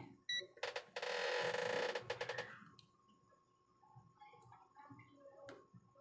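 Workbench handling noise while multimeter probes are set on a phone battery to measure its voltage. A brief high chirp, then about two seconds of scraping rustle with clicks, then faint taps and one sharp click near the end.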